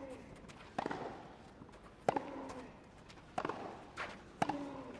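Tennis rally: sharp racket strikes on the ball, four of them about a second and a quarter apart, each followed by a short vocal sound, over a low crowd hush.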